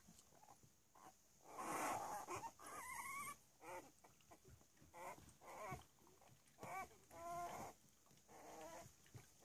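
Three-week-old Cavalier King Charles Spaniel puppies squeaking and whimpering as they play-wrestle: a string of short, faint high calls that rise and fall in pitch, with a brief rustle about two seconds in.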